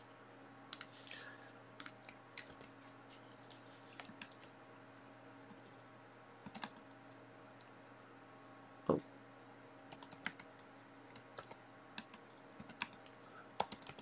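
Faint typing on a computer keyboard, scattered key clicks in short irregular bursts as shell commands are entered. There is one heavier knock about nine seconds in, over a faint steady hum.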